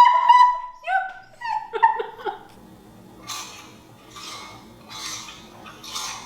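A woman making mouth sounds to imitate a household item: a run of short, high, squeaky vocal noises, then four breathy hisses about a second apart.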